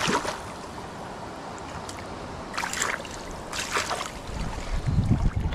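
Shallow river water splashing in several short bursts as a hooked trout thrashes at the landing net, over the steady run of the stream. A low rumble comes in near the end.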